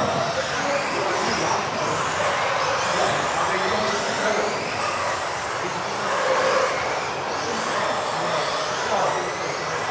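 Several electric RC off-road cars racing together, their motors whining and rising and falling in pitch as they accelerate and brake.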